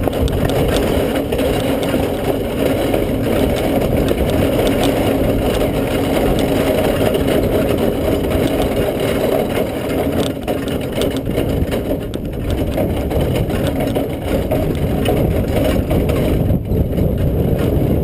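Horse-drawn carriage rolling at a trot over a sandy track: a steady rumble of the wheels with the vehicle rattling.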